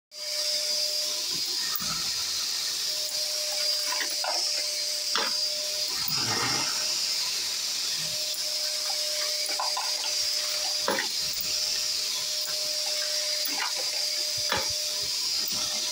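Hornady Lock-N-Load AP progressive press processing brass, with a DC775 motor spinning a Lee power quick trim cutter in the die station: a steady whirring hiss with a thin tone that drops out now and then. Over it come short clunks and clicks of the press handle strokes as cases are sized, trimmed and advanced, about two full cycles.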